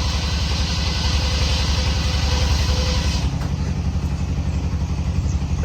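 An engine running steadily with an even, unchanging pulse and no revving. A hiss over it drops away about three seconds in.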